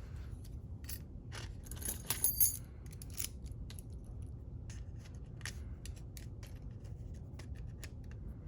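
Small metal tools and lock parts being handled: scattered light clicks and taps, with a brighter metallic jingle and clink about two seconds in.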